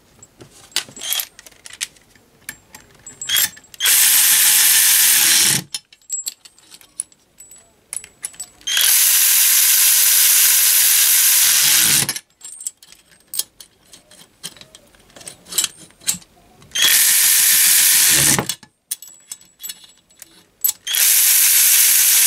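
18 V cordless 3/8-inch right-angle electric ratchet wrench running in four bursts of one to three seconds each, driving nuts down and locking them up on a steel fixture plate. The pitch drops at the end of each run as the nut tightens. Small metal clicks and knocks sound between the runs.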